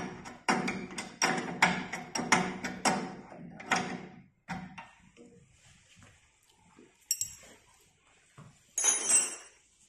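Small metallic clicks from a bolt being turned and threaded by hand into an elliptical trainer's crank arm: a sharp click about seven seconds in and a brief clinking rattle near the end.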